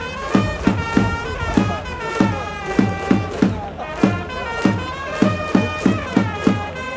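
Music playing in a large stadium: a steady thumping beat, about three beats a second, under a sustained melody.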